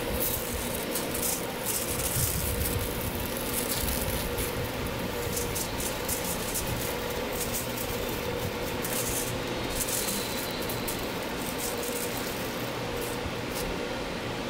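Aluminium foil crinkling and rustling in irregular crackles as gloved hands fold it around sandwich toasts, over a steady background hum.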